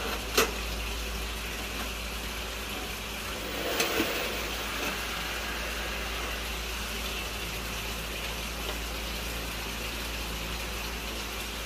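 A steady hum with a low rumble underneath, with leaf-wrapped rice dumplings being handled and tied with string: a sharp click shortly after the start and a brief rustle about four seconds in.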